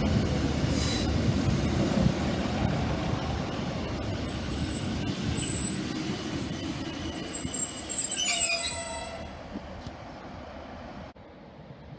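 Class 158 diesel multiple unit running in under braking, a low rumble with high-pitched wheel and brake squeals, strongest about eight seconds in, before it quietens as the train comes to a stand.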